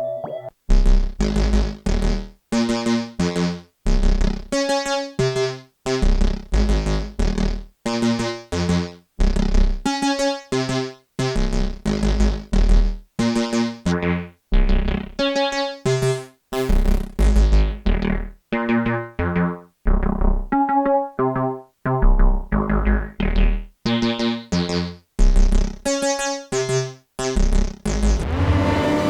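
Dreadbox Typhon monophonic analog synthesizer playing a factory preset: a rhythmic line of short plucked notes, each with a bright attack that quickly dies away, jumping between deep bass notes and higher ones. Near the end the sound switches to a steady sustained tone as the next preset begins.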